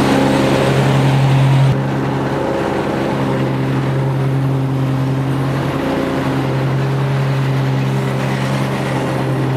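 The 22-horsepower carbureted Kawasaki V-twin engine of a Dixie Chopper Blackhawk zero-turn mower runs steadily at mowing throttle with the deck engaged. It drops a little in level about two seconds in.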